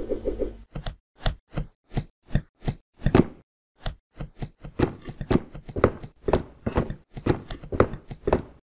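A run of short cartoon knock and tap sound effects, about three a second at first, then quicker and more uneven after about four seconds.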